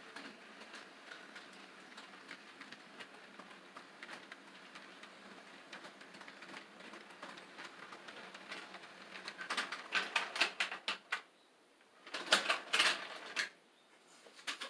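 HO-scale model freight train rolling past: a faint steady running noise, then from about ten seconds in a rapid clatter of clicks as the cars' wheels cross the track joints, broken by two short pauses.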